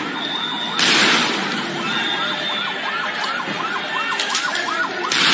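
A siren yelping, its pitch rising and falling about three times a second. A loud bang cuts in just under a second in, with another at the very end.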